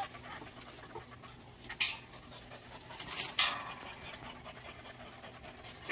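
Jindo dogs panting hard after a run, with two short noisy bursts, the louder about three seconds in.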